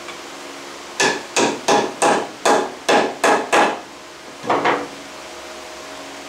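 Hammer blows on a wooden glue-up: eight sharp strikes in quick succession, about three a second, then a short pause and two more quick blows.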